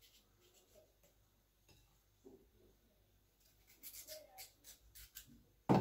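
Kitchen knife cutting through a raw potato held in the hand, a run of short crisp cuts, then one loud knock near the end with a brief ring.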